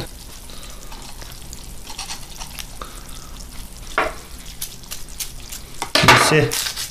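Dry ice bubbling in 90% alcohol with a steady, fine fizzing crackle, the carbon dioxide boiling off through the cold bath. A short knock sounds about four seconds in.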